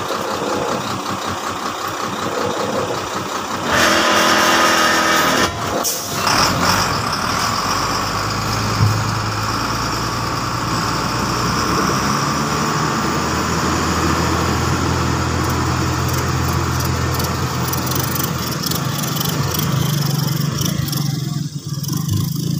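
A vehicle engine running steadily, louder for a couple of seconds about four seconds in.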